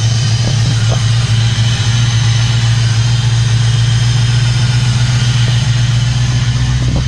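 LS V8 engine swapped into a BMW 318ti, idling steadily just after a new 85 mm throttle body was fitted, while the engine computer relearns its idle.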